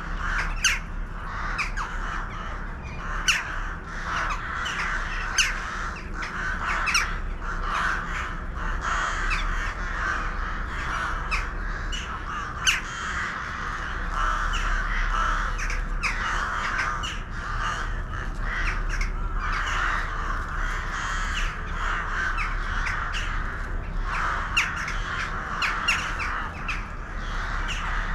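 A large flock of birds calling all at once: a dense, continuous chorus of overlapping calls, with short sharp calls cutting through many times a second.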